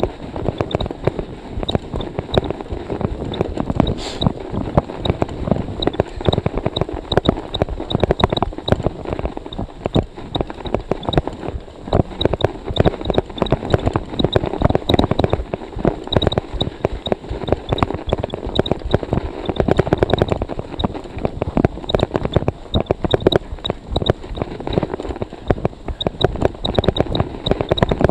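Scott Speedster CX cyclocross bike's tyres rolling through fresh snow at a steady pace, a dense continuous crunching and crackling, with storm wind on the microphone.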